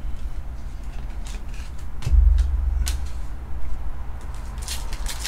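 Trading cards being handled and laid down on a table: a few brief slides and clicks of card stock, over a steady low hum that gets louder about two seconds in.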